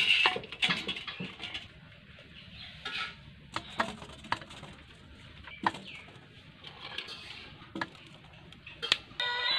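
Peeled green hog plums dropped one by one into a steel bowl of water, making scattered splashes and knocks against the bowl, the loudest right at the start. A bird calls faintly behind them, and music with singing starts near the end.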